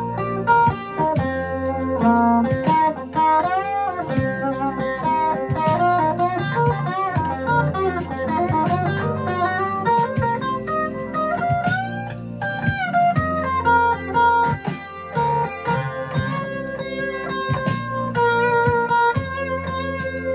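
Epiphone semi-hollow electric guitar played through an amp: a run of lead lines with bent notes over sustained chords.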